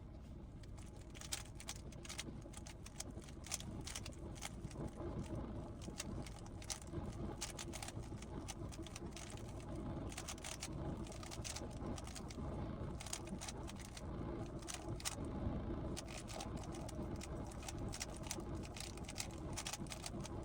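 Rubik's cube being turned by hand: irregular runs of sharp plastic clicks, several a second at times, over a steady low rumble.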